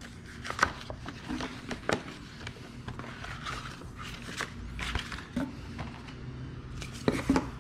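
Hands opening a thick plastic envelope and handling the cards inside: rustling and crinkling with scattered clicks and taps, over a faint steady low hum.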